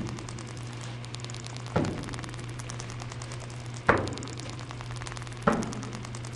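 Three sharp knocks about two seconds apart, each ringing off briefly, the middle one loudest. Under them run a steady low hum and rapid faint ticking.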